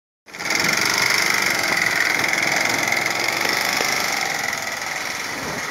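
Handheld electric bag-closing sewing machine running with a steady whir as it stitches the top of a filled sack shut, dropping away near the end.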